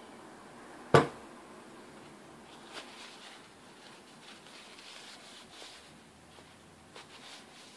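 A sharp knock about a second in, a plastic bottle of nail polish remover set down on the wooden workbench. Then the faint rubbing and rustle of a rag wiping the steel drill-chuck arbour clean, with a couple of light clicks.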